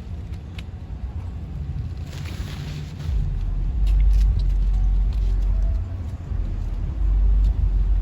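Low rumble of a car heard from inside the cabin, growing louder about three seconds in. A brief rustle comes a couple of seconds in.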